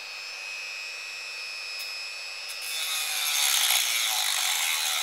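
INGCO mini die grinder (rotary tool) with a small cutting disc running at its lowest speed with a steady high whine. About three seconds in, the disc is pressed into an aluminium profile and a louder grinding rasp takes over as it bites into the metal. At this lowest speed the motor cannot take the cutting load.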